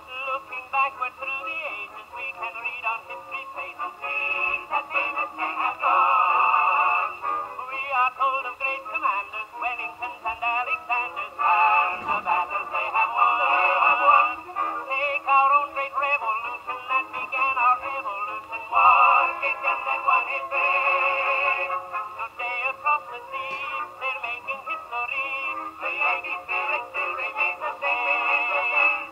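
A 1921 Victor Victrola acoustic phonograph playing a 78 rpm Victor record: old recorded music, thin and lacking both bass and treble.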